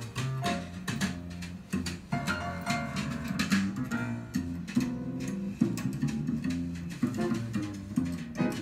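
Background music led by a plucked guitar over a bass line, a steady run of notes.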